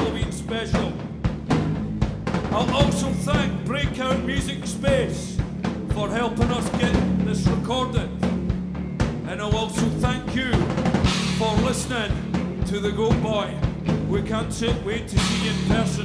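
Live rock band playing: a drum kit driving a steady beat with bass drum and snare, electric guitars and bass guitar through amplifiers, and a vocalist singing over them.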